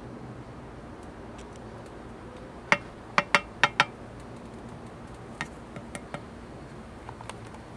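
A wooden craft stick tapping on glass while dabbing on paint: five sharp clicks in quick succession, then a few fainter taps.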